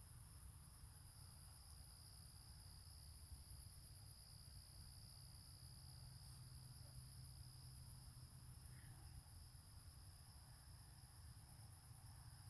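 Faint chorus of crickets and other insects: a steady, very high-pitched pulsing trill with a second steady tone below it, over a low rumble.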